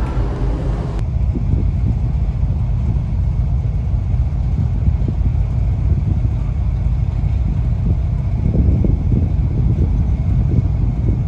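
Steady low rumble aboard a ferry under way: the ship's running engines with wind buffeting the microphone on the open deck. The higher hiss falls away about a second in.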